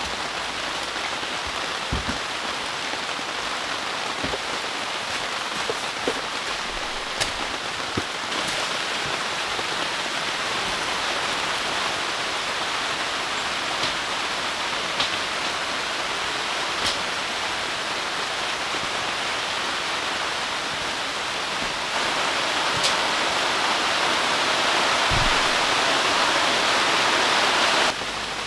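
Heavy rain falling hard and steadily, with scattered sharp ticks and knocks over it. The rain gets louder about two-thirds of the way through and changes abruptly near the end.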